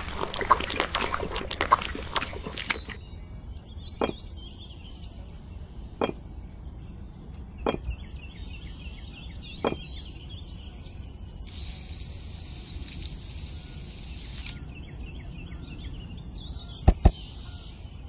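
Small trowel scraping and tapping as it spreads wet mortar over miniature bricks, then a few sharp clicks as tiny bricks are set into the mortar, about one every two seconds, with two close together near the end. Faint bird chirps run underneath, and a steady high hiss lasts about three seconds midway.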